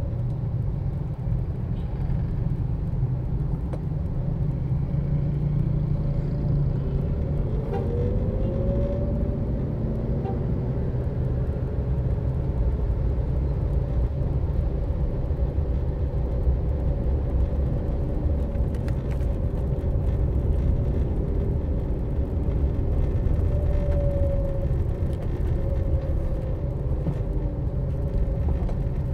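Steady low rumble of a vehicle driving through city traffic: engine and road noise. A brief rising whine comes about eight seconds in, and a shorter tone near the end.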